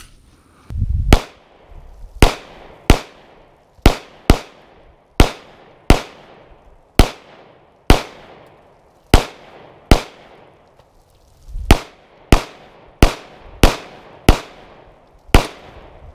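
Handgun fire: a string of about seventeen shots spaced roughly half a second to a second apart, each with a short echo trailing off, with a brief pause about two-thirds of the way through.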